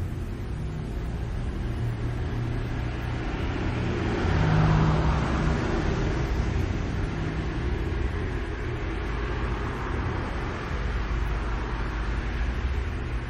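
Street traffic rumbling steadily, with a passing vehicle swelling to its loudest about four to five seconds in and then fading.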